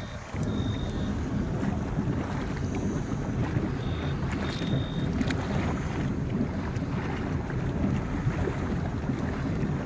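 Steady wind buffeting the microphone over the low rumble of a boat trolling on a lake.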